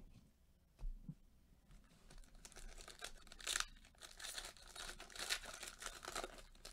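Foil wrapper of a basketball trading-card pack being torn open and crinkled, a dense crackling rustle from about two seconds in with a sharp tear in the middle. A light thump comes about a second in.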